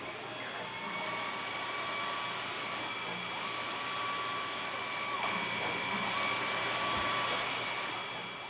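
PolyJet 3D printer running during a build: a steady airy hiss with a thin high whine, and a second, lower whine that drops out and returns a few times.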